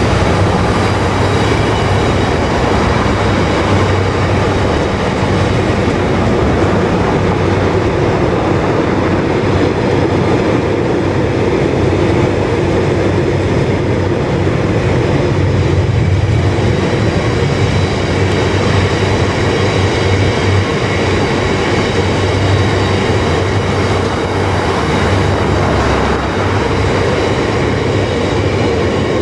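Long rake of JHA aggregate hopper wagons behind a Class 66 diesel locomotive rolling steadily past, giving a constant, even noise of wheels running on the rails.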